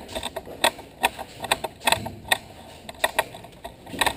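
Airsoft guns firing: about a dozen sharp snapping clicks at uneven intervals, single shots rather than a steady burst.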